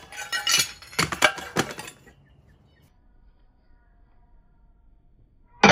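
Broken porcelain toilet pieces clinking and knocking together as they are handled in a pile, for about two seconds. Near the end, a sudden loud crack of a sledgehammer smashing into porcelain.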